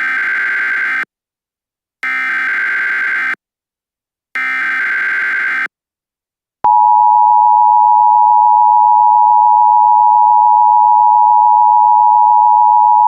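Emergency Alert System alert tones: three bursts of SAME header data, each a buzzing digital warble about a second long with short silences between, then the long, loud, steady two-tone EAS attention signal.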